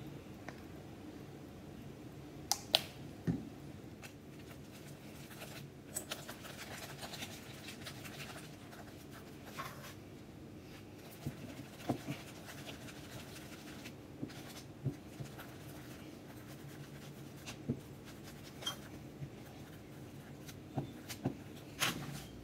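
Glass muller grinding pigment paste in circles on a glass slab: a soft, steady scraping, broken by about a dozen scattered sharp clicks of glass on glass.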